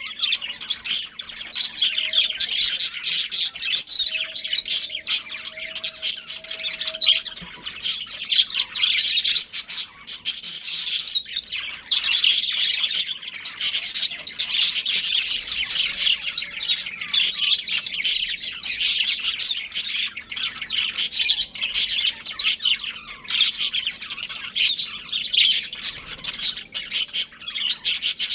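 Budgerigars chirping continuously: a dense stream of rapid, high chirps with no pauses, over a faint steady low hum.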